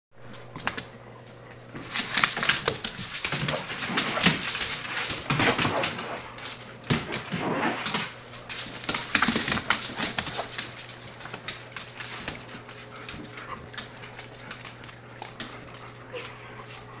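Several golden retrievers scrambling after a laser dot, their claws clicking and skittering on a hardwood floor amid excited dog whimpering. The scuffling is busiest for the first half, then thins to scattered clicks over a steady low hum.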